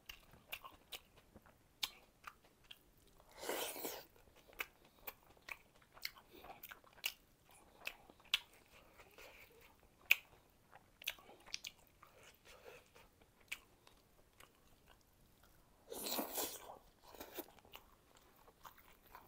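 Close-miked chewing of a mouthful of rice and fish curry, with many small wet mouth clicks and smacks. Two louder, longer noises stand out, one about four seconds in and one about sixteen seconds in.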